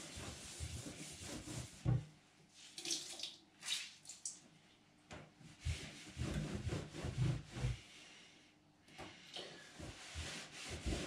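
A cloth rubbing and wiping over a kitchen sink and worktop in irregular scrubbing strokes, with a few brief pauses.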